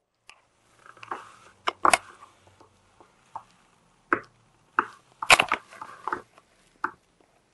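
Plastic toys being handled: scattered, irregular clicks and knocks with brief rustling, the loudest knock about five seconds in, as a hand moves the toys and brushes close over the recording device.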